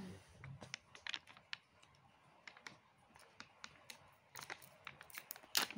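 A body-scrub jar being opened by hand: irregular small clicks and ticks as fingers pick and pry at the lid, with one sharper click near the end.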